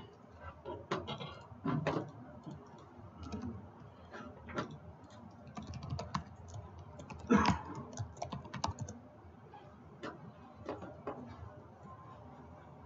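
Typing on a computer keyboard: irregular keystrokes as a login name and password are entered, one louder stroke about seven seconds in, stopping near the end.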